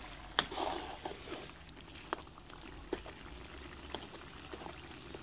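Metal spatula clinking and scraping against a wok while stirring and breaking up lumps of shrimp paste in simmering coconut milk. There is one sharp clink about half a second in, then a few lighter, irregular taps.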